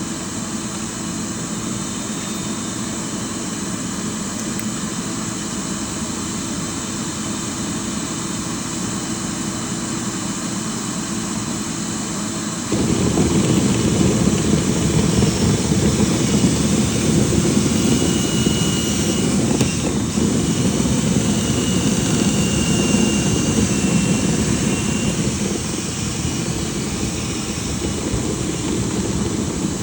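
Dryer vent cleaning equipment running steadily: a loud motor with rushing air. It suddenly gets louder and heavier a little under halfway through.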